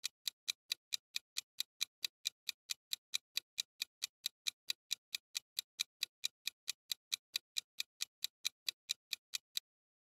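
Clock-style ticking sound effect counting down a thinking pause: evenly spaced sharp ticks, about four a second, stopping shortly before the end.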